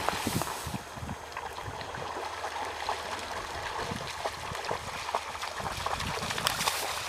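Labrador retriever splashing through shallow water, its legs churning up a steady run of irregular splashes.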